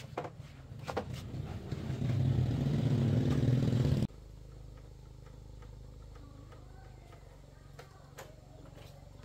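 Small underbone motorcycle engine running with some clatter. It grows louder, then stops abruptly about four seconds in, leaving a quieter low steady hum.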